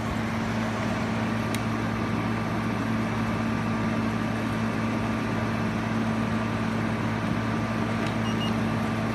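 GE 5010 BTU window air conditioner running with its compressor and fan on, cooling: a steady hum under the even rush of the fan's air.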